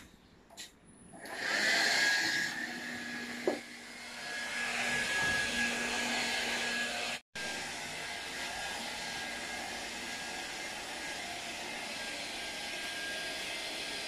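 Mr. Siga iMop V6 cordless vacuum cleaner switched on about a second in, then running steadily with a thin high whine as it sucks up dust and debris. A single short knock comes a few seconds in, and the sound cuts out for an instant about halfway.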